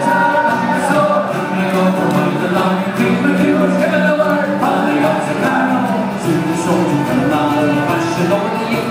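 Live Irish folk band playing, with strummed acoustic guitars, mandolin and bass under several men's voices singing together.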